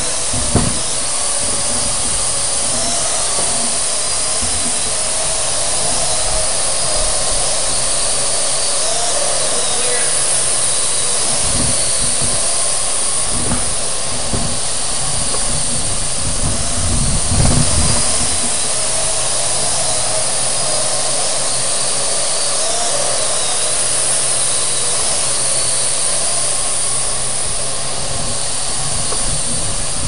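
Parrot AR.Drone quadcopter's electric rotors whirring steadily in flight, the pitch wavering a little as it manoeuvres.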